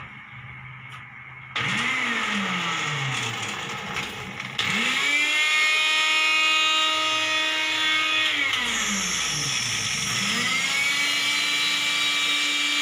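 Electric countertop blender motor running with an empty jar. It spins up about a second and a half in, steps up to a higher speed with a louder whine, winds down, then spins up again and runs steadily near the end. The blender was flooded and has since been cleaned and dried, and it works again.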